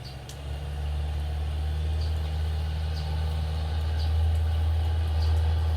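An engine idling steadily, a deep drone that builds up over the first second and then holds, with faint short high chirps about once a second.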